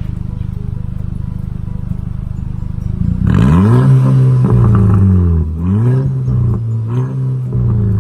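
Audi A3's turbocharged engine through a 2.5-inch straight-pipe exhaust that keeps the stock muffler, idling with a low rumble, then revved three times from about three seconds in, the pitch climbing and falling back with each rev.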